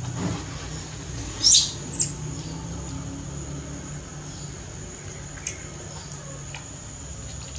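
Short high-pitched animal squeaks: two loud ones close together about a second and a half in, then a couple of fainter ones later, over a low steady hum.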